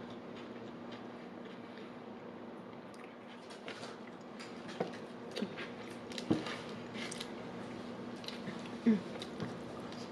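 Close-miked chewing and mouth sounds of someone eating a sub sandwich: scattered soft wet clicks and smacks, a little louder about six and nine seconds in, over a faint steady hum.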